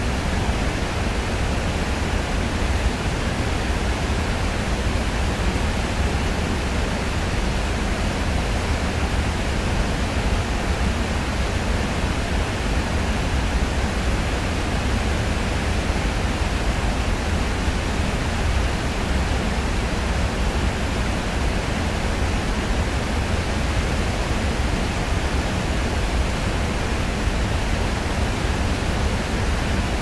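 Waterfall, a steady rushing of falling water with a deep, even noise that never changes.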